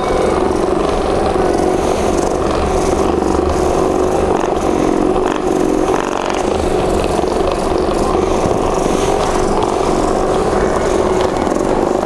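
Handheld percussion massage gun running against a person's back, its motor buzzing steadily with a fast pulsing hammer beat.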